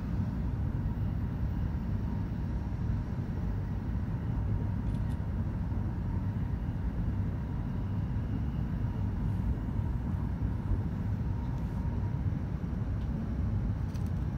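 Hokuriku Shinkansen train running, a steady low rumble heard inside the passenger cabin, with a faint steady whine in it.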